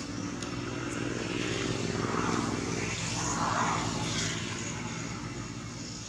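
An engine running steadily, growing louder through the middle and easing off near the end.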